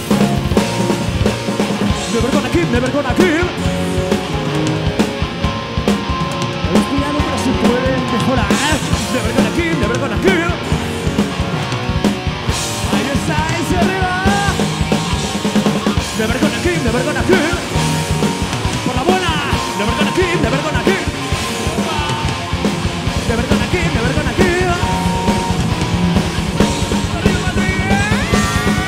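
Power metal band playing live: electric guitars over fast, dense drumming, with a lead melody bending in pitch.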